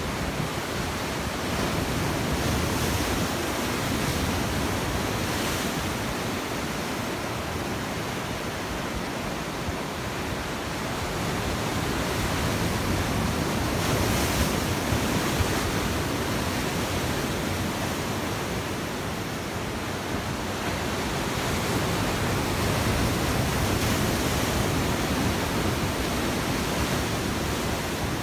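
Sea waves breaking over rocks and against a stone breakwater: a continuous rush of white water that swells louder three times as waves come in and wash back.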